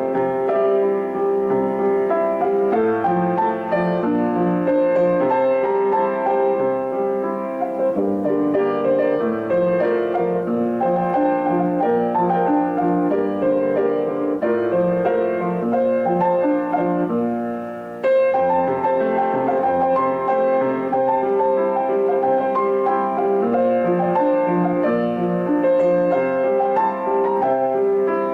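Piano music with slow held chords and melody notes. It dips and cuts back in abruptly about two-thirds of the way through.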